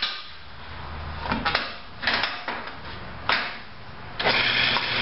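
A wood lathe turning a cedar lamp blank, its low hum dying away at first. A long drill bit knocks and scrapes a few times as it is worked out of the bore to clear sawdust. About four seconds in, the lathe comes back on and runs with a loud steady hiss over a low hum.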